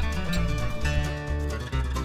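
Background music: a guitar-led tune over a steady, rhythmic bass line.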